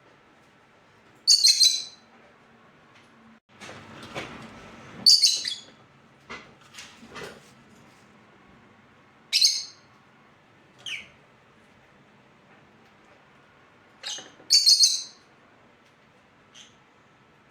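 Pet parrot giving short, shrill calls: four loud ones several seconds apart, with a few fainter ones between. A brief rustling noise comes about four seconds in.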